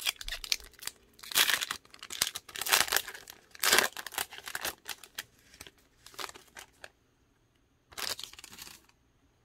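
Foil wrapper of a Panini NBA Hoops trading card pack being torn open and crinkled by hand: several short rips and crackles in the first four seconds, softer rustling after, and one more crinkle near the end.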